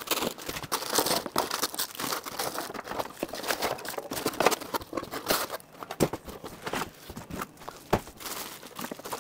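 Plastic packaging bags crinkling and rustling as plastic-wrapped speakers and bagged cables are handled and lifted out of their box, with a sharp knock near the end.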